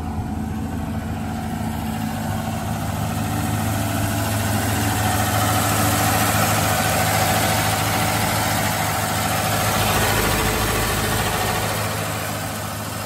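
Old Chevy Nova's engine idling steadily, described as running really good and so quiet, on its first run after sitting for years, fed from a boat fuel tank. It grows louder in the middle, heard close up at the open engine bay.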